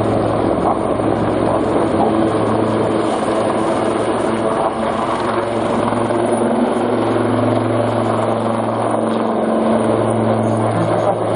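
Two Royal Navy Lynx-family helicopters flying past in close formation: steady rotor and turbine noise with a low hum that grows a little stronger after the middle.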